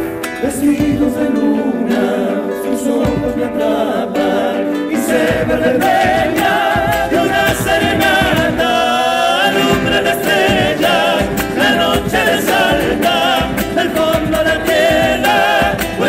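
Live Argentine folk music: several voices singing together over strummed acoustic guitars and a bombo drum, the singing growing stronger about five seconds in.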